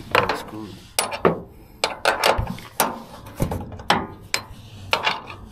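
Metal hand tools clinking and clanking: an irregular string of sharp metal knocks with a short ringing tail, about two a second.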